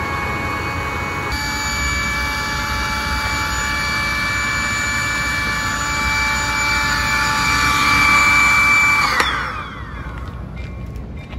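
A small electric motor whining steadily, then switched off about nine seconds in, its pitch falling as it spins down.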